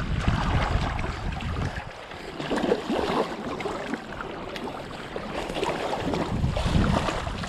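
Wind buffeting the microphone over the rush and splash of river water. The low wind rumble drops away about two seconds in and returns near the end, leaving uneven water noise between.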